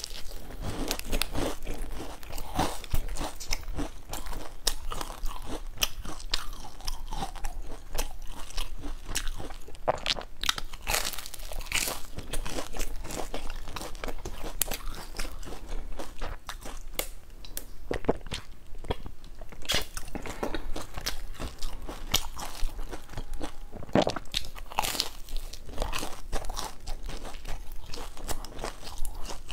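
Close-miked biting and chewing of crisp, crumb-coated layered pastry buns: many short crackly crunches scattered throughout.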